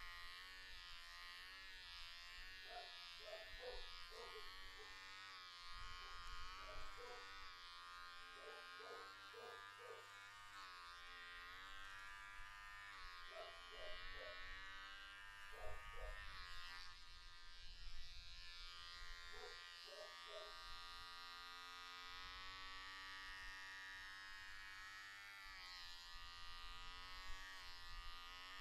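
Electric hair clippers buzzing steadily as they cut short hair, the pitch wavering a little as the blades take the hair.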